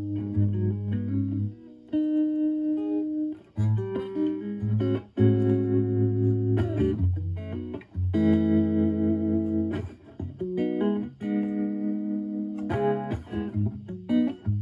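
Clean electric guitar chords from a Stratocaster with HSH pickups, through a Joyo JF-09 analog optical tremolo pedal into a Marshall Valvestate amp's clean channel. The volume pulses quickly and evenly under each chord. The chords stop and start again several times with short breaks.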